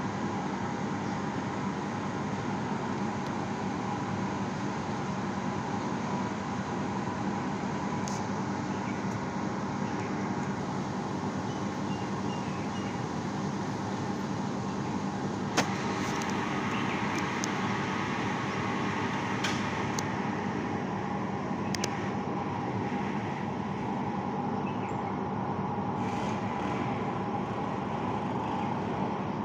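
Steady road-traffic noise, with a few sharp clicks, the loudest just past halfway.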